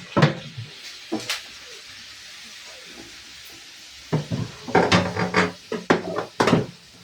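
Household items clattering as they are handled and set down: a few sharp knocks near the start, a pause, then a quick run of knocks and clinks in the second half.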